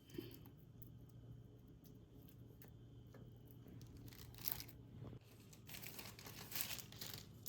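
Faint rustling and crinkling of paper in a few short bouts over a steady low hum.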